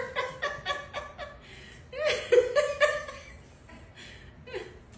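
High-pitched laughter in quick rhythmic chuckles: a run at the start, another about two seconds in, and one short chuckle near the end.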